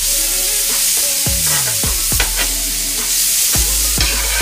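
Chicken and vegetables sizzling on a hot electric griddle. A metal slotted spatula scrapes and clacks against the griddle plate in repeated strokes as the food is stirred together.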